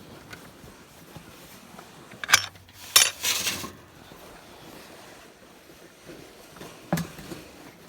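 A few sharp metallic clinks and knocks: two about two and three seconds in, the second followed by a brief rustle, and one more near the end.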